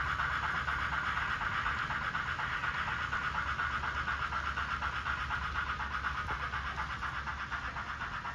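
N scale model train running: the steady whirr and rumble of the locomotive's motor and the freight cars' wheels rolling on the track, easing slightly as the train rounds the curve away.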